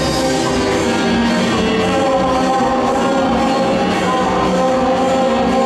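Live band music with singing: keyboard (keytar) and electric guitar over a steady beat.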